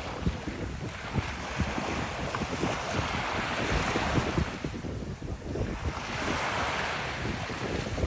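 Ocean waves breaking and washing up a beach, in two swells that ease off about five seconds in, with wind buffeting the microphone.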